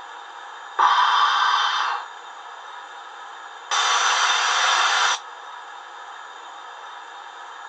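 Fleischmann BR 41 model steam locomotive's DCC sound decoder, heard through its small onboard speaker, playing a steady standing-engine steam hiss. Two louder bursts of steam hiss break in over it, each lasting about a second and a half, starting and stopping abruptly.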